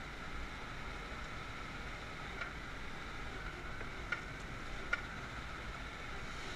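Steady hum of crush-pad machinery, a destemmer-crusher and forklift running together, with a few short sharp clicks scattered through it.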